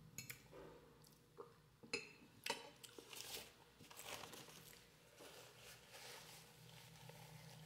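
Quiet eating sounds: faint chewing of instant noodles, with a few soft clicks in the first three seconds.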